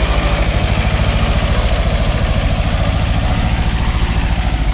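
Small Kubota diesel compact tractor engine running close by, a steady, even, rapid chugging as the tractor drives past.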